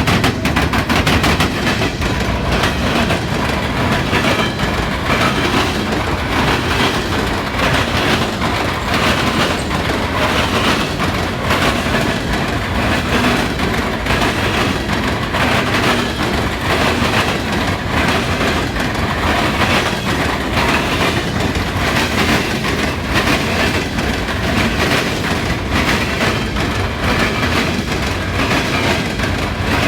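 Fast Norfolk Southern coal train's wheels hammering over railroad diamond crossings, a loud, continuous rapid clatter of wheel impacts as the cars pass.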